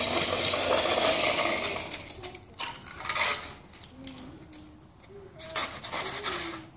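Toy dump truck pushed over wet concrete and slush, a steady scraping rumble of its wheels for the first two seconds. After that, a few short scrapes of a plastic snow shovel on the wet driveway.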